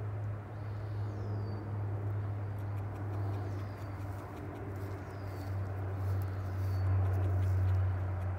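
A steady low hum over a background hiss. Above it, a bird repeats a short high call that falls in pitch, about every one and a half seconds.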